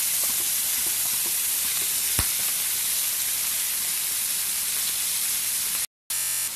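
Chicken pieces sizzling steadily in hot oil in a pan as they are stirred with a wooden spatula. There is a single sharp knock about two seconds in, and the sound cuts out for a moment near the end.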